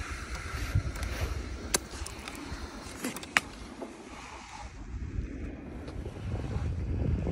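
Tour skates gliding and scraping over clear black ice, a steady rushing rumble, with a few sharp clicks against the ice and wind on the microphone.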